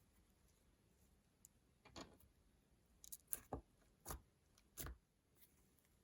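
Slime being handled: a handful of short, separate squelches and sticky pops over a few seconds, with quiet between them.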